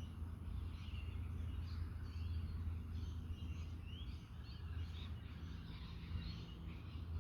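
Many small birds chirping and twittering, mixed with a steady low wind rumble on the microphone.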